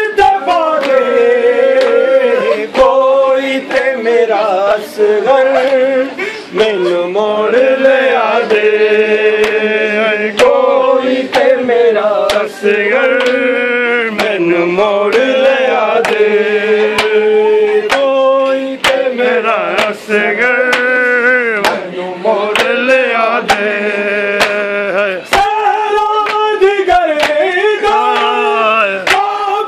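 Men's voices chanting a Muharram lament (noha), with the sharp slaps of hands striking chests (matam) cutting through again and again.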